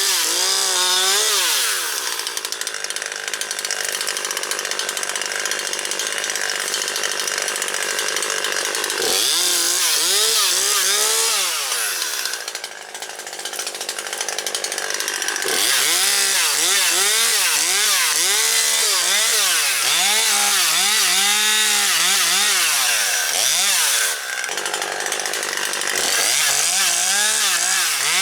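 Husqvarna 540XP Mark III two-stroke chainsaw cutting up storm-downed branches: long spells of steady full-throttle running through wood, broken by repeated rev-ups and drops in engine pitch between cuts. There is a brief dip about thirteen seconds in, and a short drop near the end.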